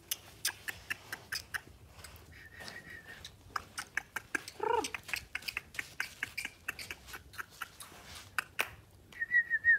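A puppy whining: thin high whines, one short louder cry near the middle, and another high whine near the end, over a scatter of light clicks and taps.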